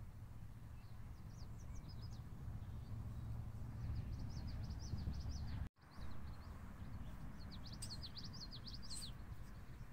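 Songbirds chirping in quick runs of short, high notes, in several bursts over a low steady rumble on the microphone. The sound cuts out for an instant just past halfway.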